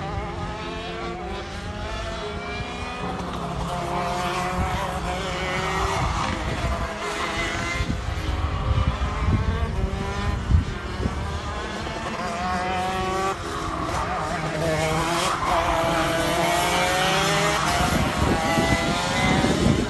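Several high-revving racing engines at once, their pitch climbing and falling over and over as they accelerate and lift off, with a sharp crack about halfway through and a loud burst at the very end.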